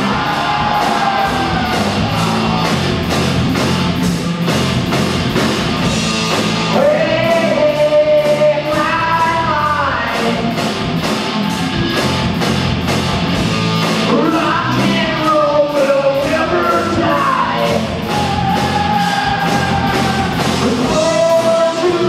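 A rock band playing live: electric guitar and drums with a steady cymbal beat, and a man singing over them.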